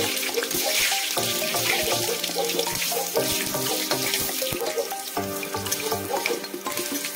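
Dried red chillies and bay leaves sizzling in hot oil in a steel kadai, a steady crackling hiss, with background music with a regular beat underneath.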